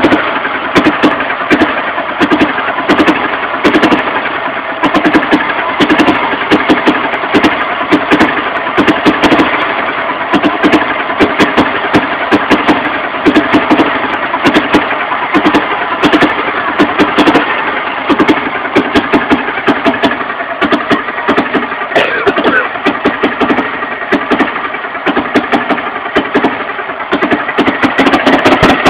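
1959 Hanomag C112's 12-horsepower D611 engine idling with a pulsing, rhythmic beat, running after 34 years of standing.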